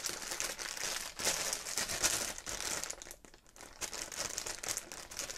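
Clear plastic packaging bag crinkling and rustling as hands open it, with a brief lull a little past three seconds in.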